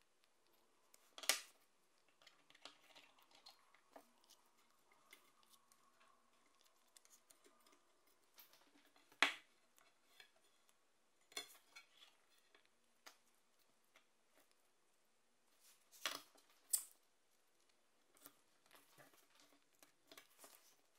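Sparse clicks and taps of a steel machete and its wooden handle scales being handled and fitted together on a wooden board, with faint handling noise between. The sharpest clicks come about a second in, about nine seconds in, and twice in quick succession around sixteen seconds.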